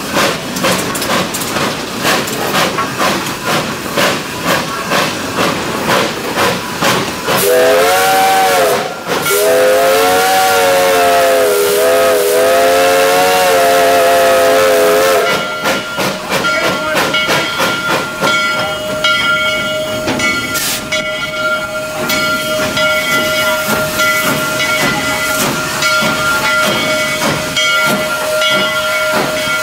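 The Handy Dandy No. 9 steam locomotive, heard from the cab. Its exhaust chuffs in a steady beat, then its steam whistle blows a short blast about seven seconds in and a long blast lasting about six seconds. After the whistle, steam hisses over a steady high tone while the engine keeps working.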